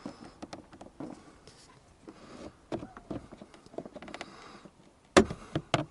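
Plastic dashboard trim panel being pried off: scattered small clicks and scrapes, then two loud snaps near the end as its retaining tabs pop free.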